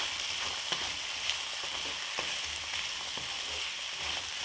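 Mixed vegetables sizzling in oil in a black kadai while being stir-fried with a wooden spatula, frying until they soften. The spatula makes a few light scrapes against the pan over the steady sizzle.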